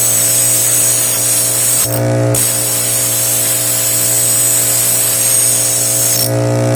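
Electric grinder running with a steady hum while the knife's steel is ground on it, the grinding hiss over the top. The hiss breaks off briefly about two seconds in and again near the end as the blade is lifted from the wheel, the motor running on.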